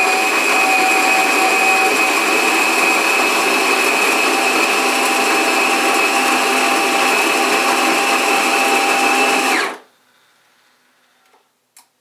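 The built-in coffee grinder of an Andrew James Premium bean-to-cup coffee maker grinding beans, a steady, a little bit noisy whirring with a high whine. It stops abruptly about ten seconds in, once the coffee is ground.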